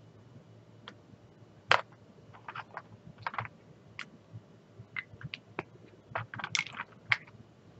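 Small plastic clicks and taps as a clear storage case of small diamond-painting bottles is handled, scattered and irregular, with one sharp click about two seconds in and a quick run of taps near the end.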